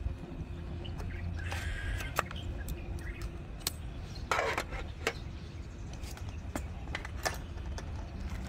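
A steady low rumble with scattered light clicks and taps, and a short burst of rustling noise about four and a half seconds in.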